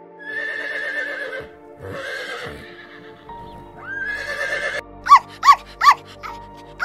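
A horse whinnying, long quavering neighs, then a small dog giving short high yips, about four in quick succession. Steady background music plays underneath.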